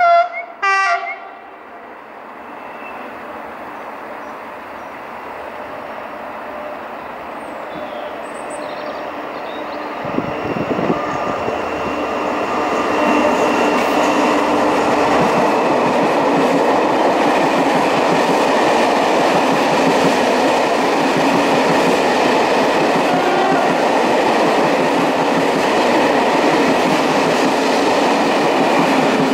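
Two short train horn blasts in the first second, then an SNCF Corail passenger train, a locomotive hauling coaches, approaching and growing steadily louder before running past close by, its engine and the coaches' wheels on the rails making a loud, steady rolling noise.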